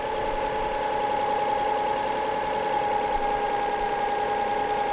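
Toyota 3.0 V6 engine idling steadily, with a steady whine over the running.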